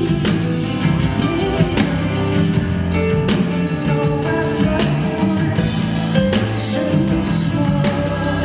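A live band performing a rock song: a steady drum beat with cymbals, a bass line, and held keyboard notes, with singing.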